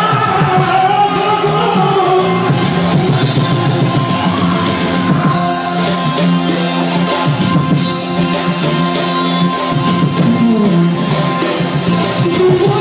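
Balkan Roma band music with a steady beat and singing in places, a long held keyboard-like note running through the middle.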